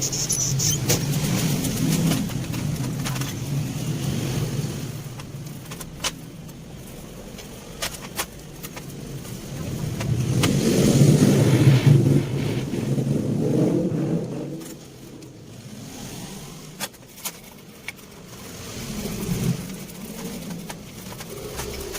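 Passing motor-vehicle engines, a low hum that swells and fades about three times and is loudest near the middle, with scattered sharp clicks over it.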